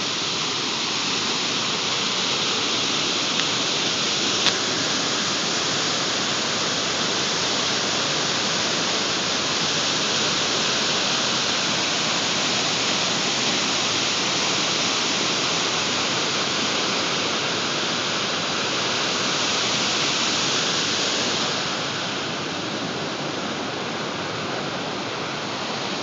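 Waterfall pouring: a steady rush of falling water, dropping a little in level about three-quarters of the way through.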